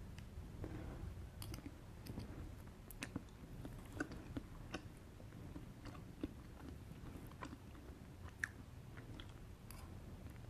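A person chewing chocolate cake with mocha frosting close to the microphone, with scattered small wet mouth clicks over a low steady hum.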